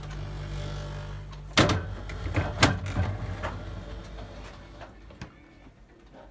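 Minsk 16S refrigerator's compressor running with a low, steady hum that stops about a second and a half in. It is followed by a few sharp knocks, the loudest about a second apart.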